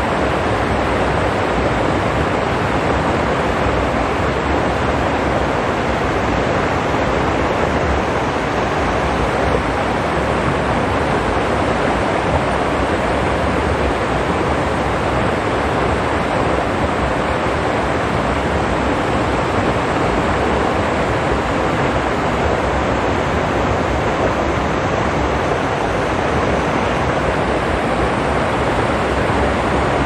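Rocky stream running over stones: a steady, even rush of water with nothing else standing out.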